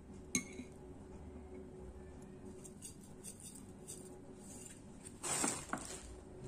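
A metal chopstick clicks sharply against a ceramic plate just after the start, then faint ticks of dry fried shallots being sprinkled from a glass jar onto noodles. About five seconds in comes a brief crinkle of thin plastic packaging, ending in a click.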